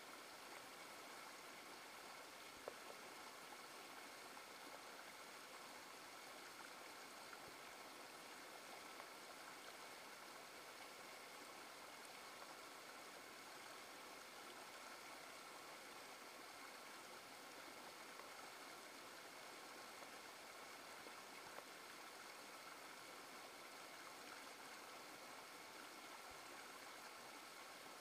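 Faint, steady rushing of a shallow rocky stream as it runs over and between boulders.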